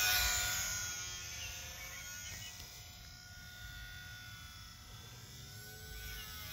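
ParkZone UMX Pole Cat ultra-micro RC plane's electric motor and propeller buzzing with a thin whine, loudest as it passes close at the start and fading as it flies away.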